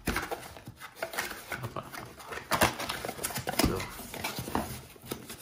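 Cardboard box being opened by hand: tape peeled off a flap and the lid lifted, giving a series of irregular scrapes and rustles of cardboard.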